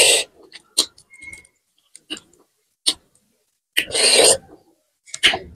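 Close-up eating mouth sounds while finishing rice by hand: a few sharp, spaced-out lip and tongue clicks, and two longer smacking sounds, one at the start and one about four seconds in.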